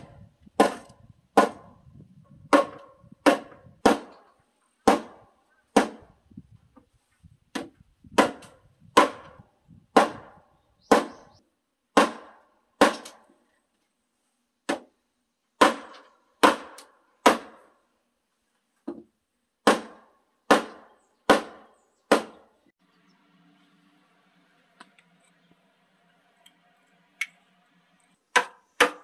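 Sharp, ringing hammer blows on a timber beam-and-post joint, about one a second, as the beam is driven home into the post. The blows stop about three-quarters of the way through, and two more come near the end.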